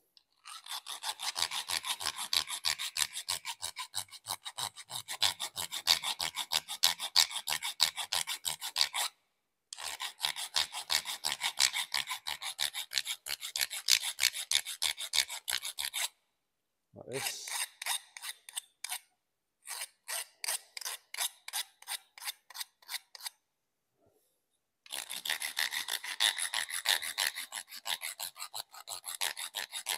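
Flat file rasping in quick, even strokes across the freshly cut end of a pipe to remove the burrs, stopping briefly a few times.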